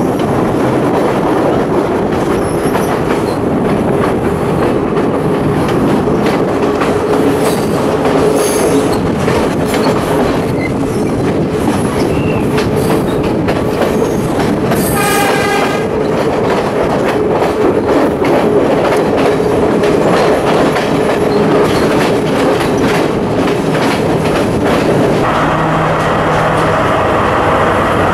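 Passenger train running, heard from an open carriage door: a steady rumble with quick clicks of the wheels over the rail joints and a constant squealing tone. A brief high tone sounds about halfway through. Near the end the sound grows brighter as the carriage runs alongside a station wall.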